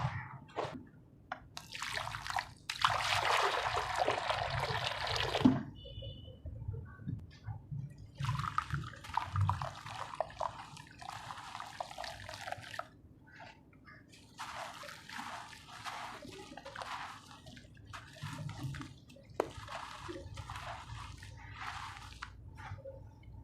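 Wet red sand-cement being crushed and crumbled, with watery dripping and sloshing. A long, loud crumble comes about three seconds in, followed by a string of shorter crunches.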